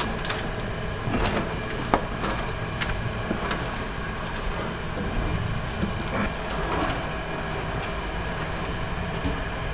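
Steady mechanical hum with a low rumble, with scattered short knocks and clinks, the sharpest about two seconds in.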